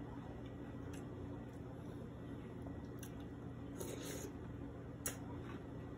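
Faint close-up chewing of a mouthful of mixed crunchy cereal in milk, with small mouth and spoon clicks and a sharper click about five seconds in, over a low steady room hum.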